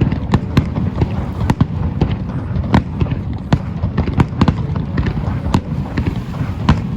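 Fireworks bursting over the sea: a rapid run of sharp bangs and crackles, several a second, over a continuous low rumble.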